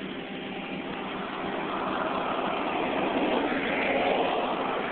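Ford Escort with a swapped-in Nissan SR20DET turbocharged four-cylinder, heard from inside the cabin while driving: engine and road noise. It grows louder through the middle, peaks about four seconds in, then eases off.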